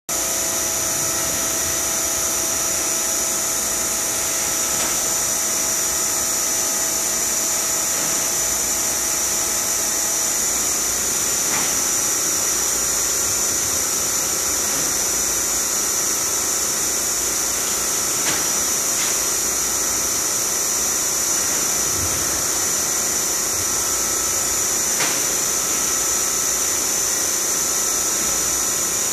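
Alloyd rotary blister sealer running: a steady mechanical hum with a strong high hiss, and a faint click about every six or seven seconds.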